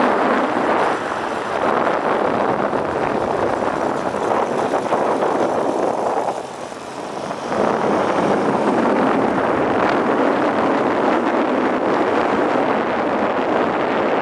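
Wind rushing over the microphone of a moving motorcycle, mixed with road and engine noise. It eases briefly about halfway through.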